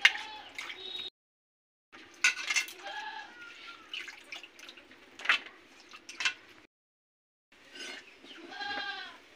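Short animal calls, a few times, mixed with sharp knocks and clinks of metal pots, plates and bowls being handled. The sound cuts out completely twice for under a second.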